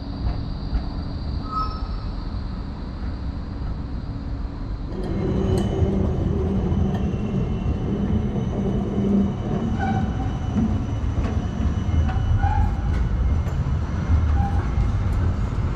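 Melbourne tram running on its rails with a steady low rumble and a few held tones; it grows louder and rougher about five seconds in, as if the tram pulls away or picks up speed.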